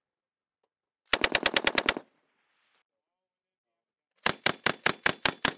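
Two bursts of automatic fire from a tripod-mounted M240B 7.62 mm machine gun. A burst of about eight rapid shots starts about a second in, and after a pause of about two seconds a second, slightly slower burst of about ten shots comes near the end.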